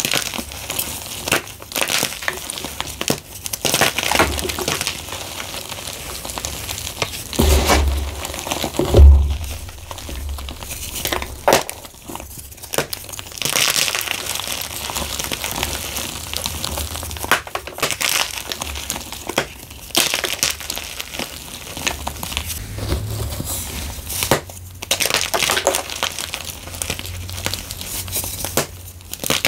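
Blocks of gym chalk crushed and crumbled by hand in a bamboo bowl: a continuous crisp crunching and crackling as the blocks break apart. A louder, deeper thump comes about nine seconds in, with a smaller one just before it.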